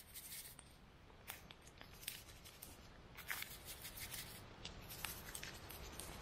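Faint, scattered light rustles and clicks of food being handled as salt and pepper are shaken over meat laid out for baking in foil.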